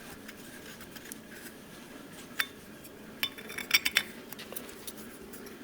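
Camshaft bearing of an International Harvester LA engine being tried and turned on its camshaft: light metal-on-metal clinks and taps as it is checked for fit. One sharper clink comes about two and a half seconds in, and a short cluster of ringing clinks follows around three to four seconds in.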